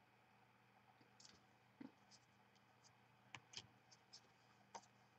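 Near silence with a few faint clicks and light scratches of trading cards being handled and sorted.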